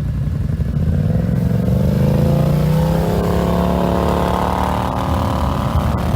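ATV engine accelerating: its pitch climbs from about a second in, then holds steady at higher revs over a low rumble.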